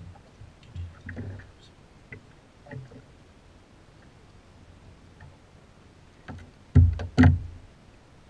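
Light clicks and knocks of a striped bass being unhooked and handled in a small boat, then two loud knocks in quick succession near the end.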